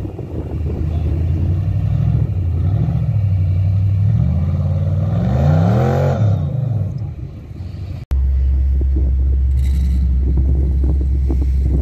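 Off-road trial buggy's engine revving up and down under load as it claws through a muddy hole, the revs climbing to a peak about six seconds in and then falling away. A sudden cut then gives way to a steady low rumble.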